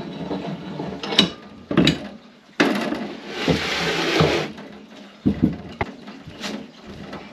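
Metal clicks and knocks from a threaded bushing press tool and a steel suspension arm being worked on a bench vice, with about two seconds of dense rattling noise near the middle.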